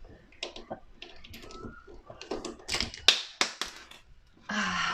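Scattered sharp metal clicks and taps of a hand screwdriver working the dishwasher's mounting screws, loudest in a cluster about three seconds in. A short vocal sound near the end.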